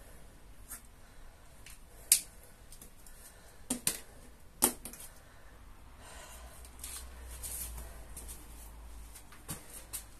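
Scattered sharp clicks and taps at irregular intervals, the loudest about two seconds in, over a faint low hum.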